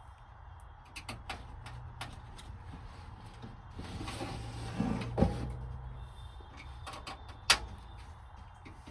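A PC cabinet's side panel being opened by hand: scattered clicks and light knocks, a scraping slide about four to five seconds in, and one sharp knock about seven and a half seconds in.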